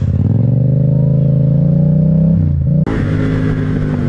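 Motorcycle engine rising in pitch as the bike accelerates, then dropping off about two and a half seconds in. After an abrupt cut near three seconds, a different motorcycle engine runs at a steady note while riding.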